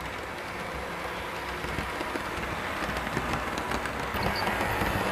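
HO scale model passenger train running along layout track, wheels rattling with small clicks over the rails, getting louder as it comes nearer.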